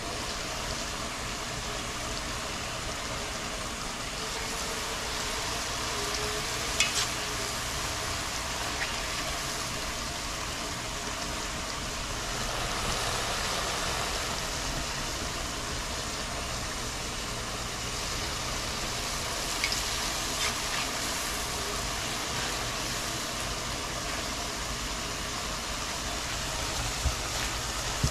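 Shrimp frying in hot oil in a pot, a steady sizzle, with a few light clicks.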